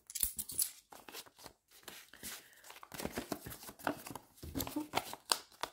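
Hands handling paper cash envelopes and coins: irregular rustling and crinkling of paper with small clicks.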